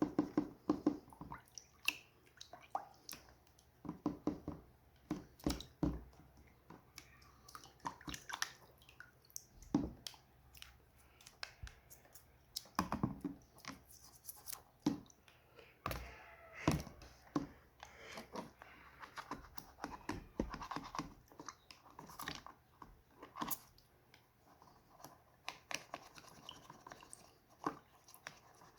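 Cleaning a Victorinox Swiss Army knife by hand: scrubbing and scraping at the tools with an old toothbrush, with irregular sharp clicks of the metal blades and tools being moved.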